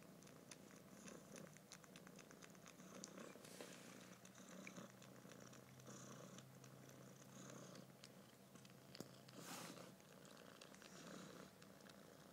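A kitten purring faintly and steadily, close up. Soft rustles of fur and fingers come through it, with one brief louder rustle about three-quarters of the way through.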